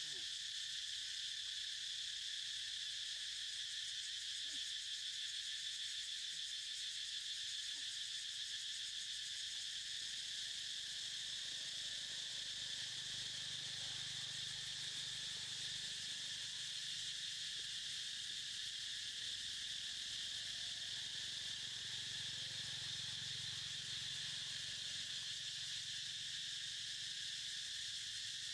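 Steady chorus of insects, a continuous high-pitched shrill drone that holds unchanged throughout.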